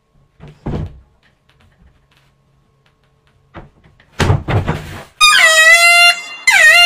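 Dull thuds of feet and a body against a wooden wardrobe door during a handstand, with a cluster of heavier thumps about four seconds in. Then a loud, buzzy comic tune with sliding notes starts and takes over.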